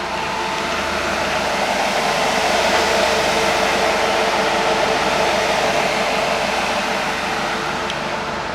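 Steady whirring hum of a Mercedes Sprinter refrigerated van running, growing a little louder towards the middle and easing off near the end.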